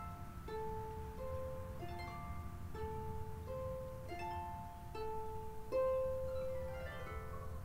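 Pedal harp playing a slow melody of plucked notes, with a quick falling run of notes near the end.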